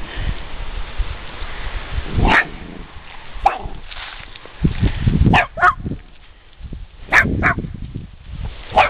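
Dogs barking and yipping in about seven short, sharp barks, some in quick pairs, as they squabble.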